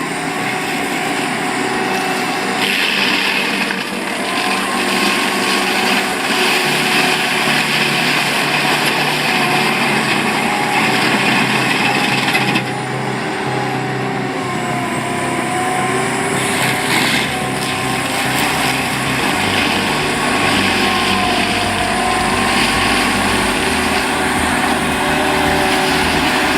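Engines of tree-cutting and logging machines running steadily under load, their pitch wavering, with abrupt changes where one clip cuts to the next.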